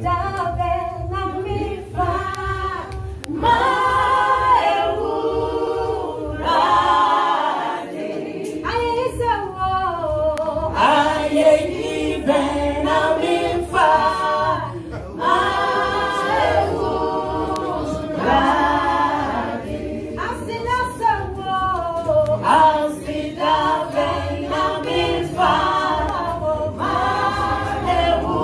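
A small group of women singing a gospel song together into handheld microphones, voices in harmony.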